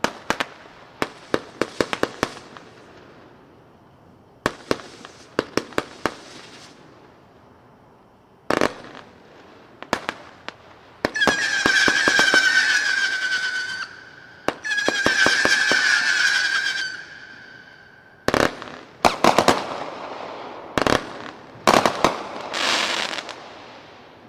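Super Good 60-shot consumer firework cake firing its shots: groups of sharp bangs and pops, with two long whistles of about two and a half seconds each in the middle, then more bangs near the end.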